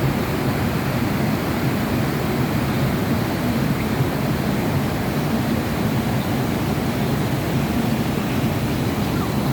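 Steady, low rushing noise of running water, even and unbroken throughout.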